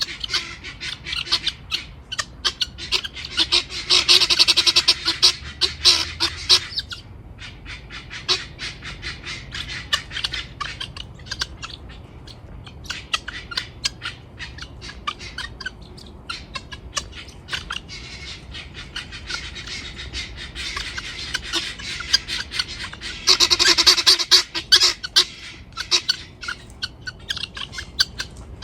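Helmeted guinea fowl calling: a long run of rapid, harsh clicking notes, swelling into two louder, denser stretches, one about four seconds in and one near the end.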